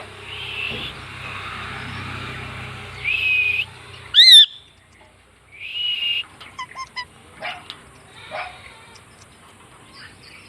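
Indian ringneck parakeet calling: three drawn-out nasal calls, with one very loud shrill call that swoops up and down about four seconds in, then softer short chirps and clicks.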